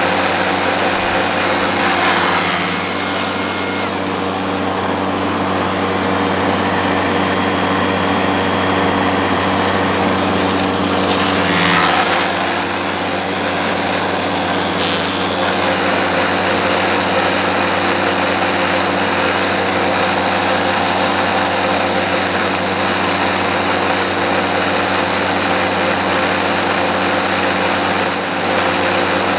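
AEG 18V brushless cordless garden tool motor running steadily at constant speed, with a few brief swishing passes.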